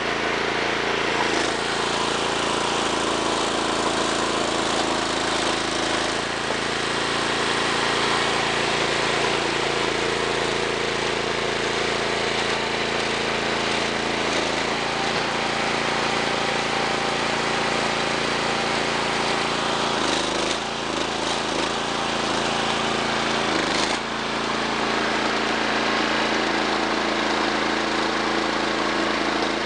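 Engine running steadily at constant speed, powering a hydraulic log splitter, with brief changes in its note a few times, most clearly about two-thirds of the way through and again a few seconds later.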